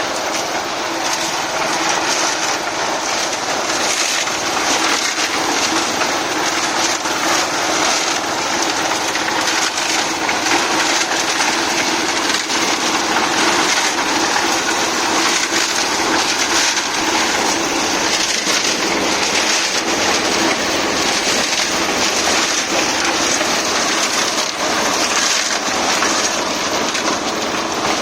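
Concrete-pouring machinery running steadily: a continuous grinding, rattling noise over a faint steady engine hum.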